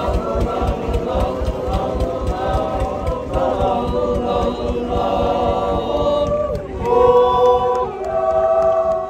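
Men's choir singing unaccompanied in close harmony, with a few moving notes at first and then long held chords that shift step by step over the last few seconds.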